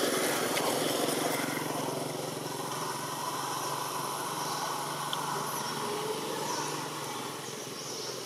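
A small engine running steadily in the background as a low hum that slowly fades, with a few faint high chirps in the second half.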